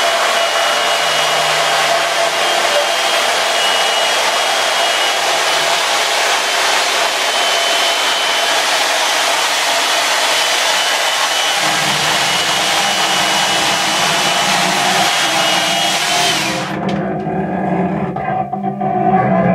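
Chainsaw running steadily, then dropping back sharply near the end. A low drone joins about two-thirds of the way through.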